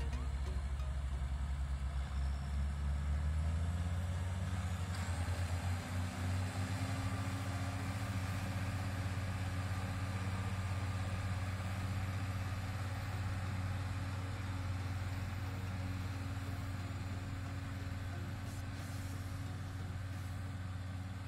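Large farm tractor's diesel engine running, its pitch rising about three seconds in as the engine speeds up, then holding steady.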